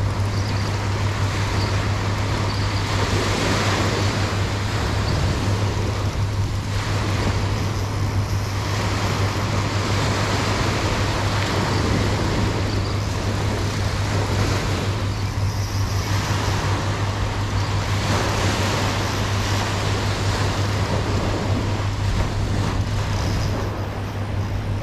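Small ocean waves breaking and washing up the sand, swelling and easing every few seconds, over a steady low hum.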